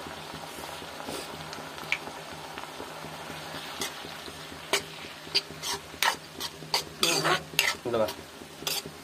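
Sliced onions and green chillies sizzling in sauce in a black kadai, stirred with a steel spoon. The steady sizzle is joined about halfway through by a quick run of the spoon clicking and scraping against the pan.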